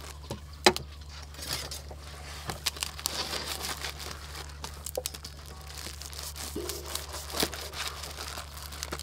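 Thin plastic food packaging crinkling and tearing in irregular bursts as mushroom packets are pulled open by hand.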